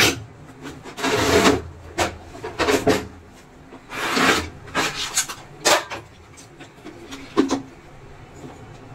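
Parts of an opened induction cooktop being handled: the copper coil assembly and circuit board scraping and knocking against the glass top and bench, with two longer scrapes and a scatter of short knocks.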